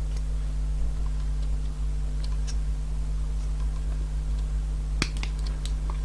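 A pen marking heat-shrink tubing held against a metal ruler: faint light ticks and taps, with one sharper click about five seconds in, over a steady low electrical hum.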